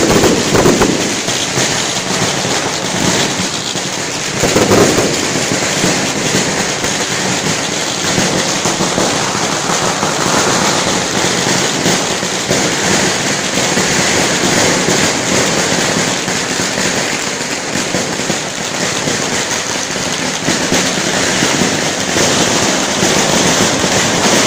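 Firecrackers and aerial fireworks going off in a dense, continuous crackle, with heavier bursts about half a second and nearly five seconds in.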